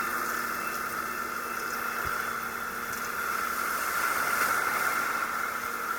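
Sea water in the surf heard through an action camera's waterproof housing: a steady, muffled hiss with no distinct splashes.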